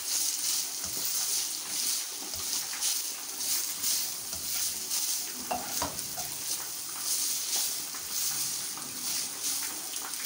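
Shredded boiled chicken being lightly fried in a little oil in a wok: a steady frying hiss, with repeated scraping strokes as a slotted spatula stirs it around the pan.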